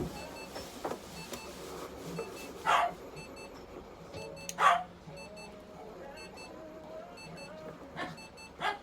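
Four-toed hedgehog sneezing three times, each sneeze brief and sharp, the middle one the loudest: the sneezing of its rhinitis with runny nose.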